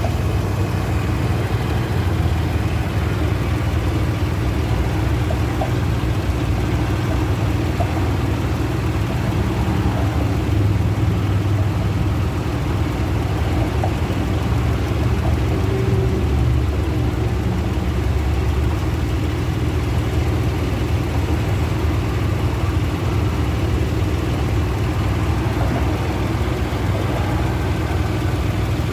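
2007 Toyota 4Runner engine idling steadily, with a few faint ticks over the low running sound. The sound is offered as the symptom of a bad water pump.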